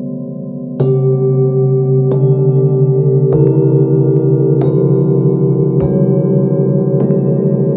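A set of hand-forged singing bowls tuned to a seven-note scale, struck one after another with a wooden mallet: six strikes about a second and a quarter apart, each adding a new ringing tone over those still sounding, so the tones pile up into a sustained chord.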